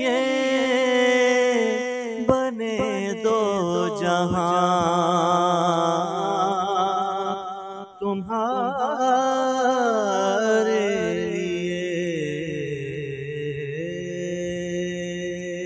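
A man's solo voice singing an Urdu naat in long, ornamented notes that waver up and down. There is a short break for breath about eight seconds in, then a long, steady held note to close.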